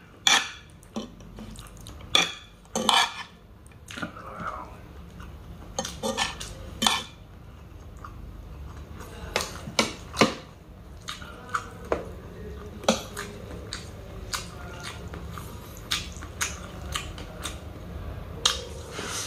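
Spoon and fork clinking and scraping on a metal sizzling plate, in irregular sharp clinks, with chewing of the chicken sisig between them.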